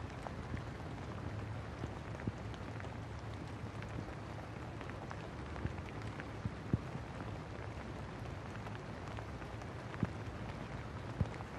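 Steady rain falling outdoors, an even hiss with a scattered few sharper ticks of individual drops.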